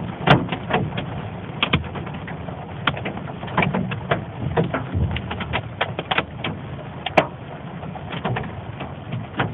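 Hailstones striking a car's windshield and roof, heard from inside the car: irregular sharp ticks and knocks, several a second, over a steady hiss of rain and hail. Two hits are much harder than the rest, one just after the start and one about seven seconds in.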